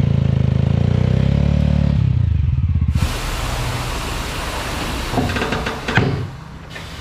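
Mahindra Mojo's single-cylinder engine running steadily for about three seconds, then a steady hiss with a few sharp metallic knocks from a tyre-changing machine working a motorcycle rear wheel.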